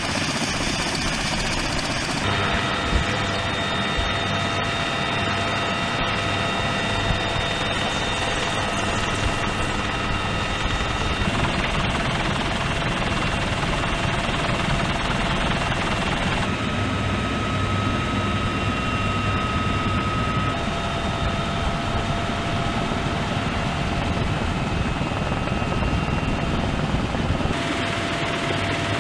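UH-1Y Venom helicopter's twin turbine engines and rotor running steadily, heard from the ground and then from inside the open cabin in flight. The engine whines and the overall tone shift abruptly several times.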